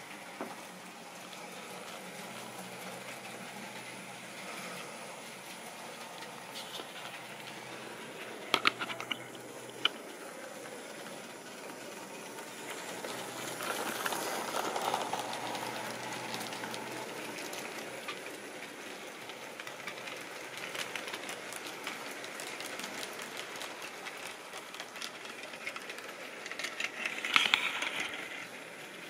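Model railway train running on the layout: a steady whirr of the locomotive motor and wheels on the track, with a few sharp clicks about a third of the way in. It grows louder as a locomotive passes close by about halfway, and there is a loud clattering rattle near the end.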